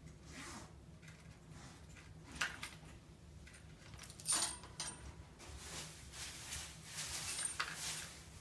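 Light clinks and rattles of a pet budgie playing at her food bowl, tossing seed out of it. The clatter comes in short bursts, the loudest about four seconds in and a busier run near the end.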